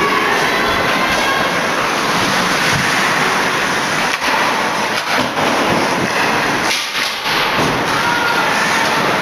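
Loud crowd of hockey spectators yelling and cheering in an echoing ice arena, with individual shouts rising out of the din and a few sharp knocks.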